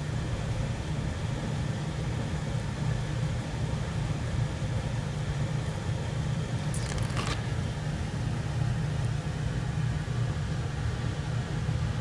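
LG ARA081YAB three-phase R410A compressor running in the outdoor unit of a system air conditioner, a steady low hum. About seven seconds in there is a brief scrape or rustle.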